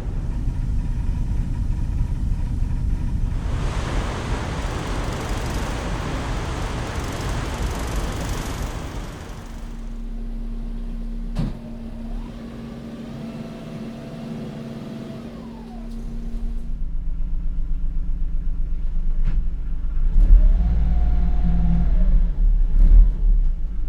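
A run of ferry recordings. First a low engine rumble, then several seconds of even rushing noise, then a steady machinery whine broken by a sharp click, and finally a throbbing engine rumble that pulses in loudness.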